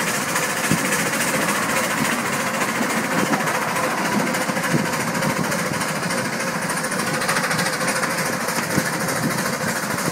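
Miniature 7¼-inch gauge steam train running along its track: a steady, rapid mechanical clatter of wheels and running gear.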